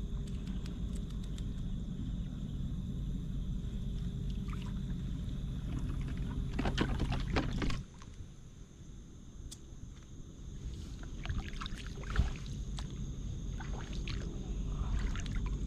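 Shallow seawater sloshing and splashing around a person wading with a hand net, with a louder burst of splashing about seven seconds in.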